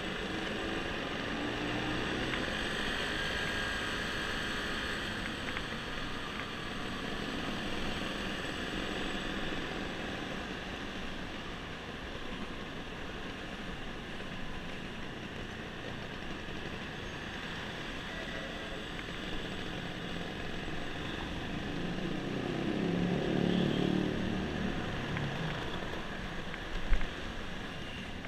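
Honda scooter's small engine running at low street speed among a group of scooters, with steady road and wind noise. A nearby engine note swells and fades about three-quarters of the way through, and a brief sharp knock comes near the end.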